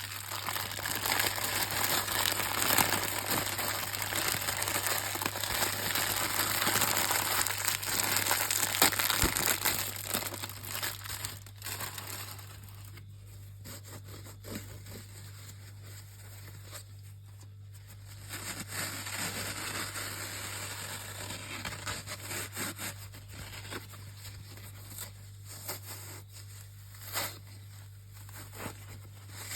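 Sponges squeezed and crumpled close to the microphone: a dense crackling rustle for the first ten seconds or so, then quieter, scattered crinkles and clicks.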